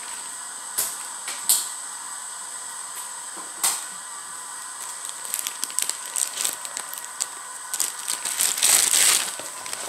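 Thin clear plastic bag crinkling and rustling as it is handled, in scattered small crackles that grow busier, with a louder rustle near the end.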